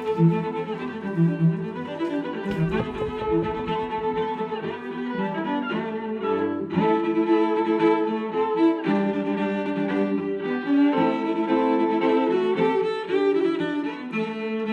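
String music with violin and cello, sustained bowed notes, played back through an Anker Soundcore Bluetooth speaker as a sound test.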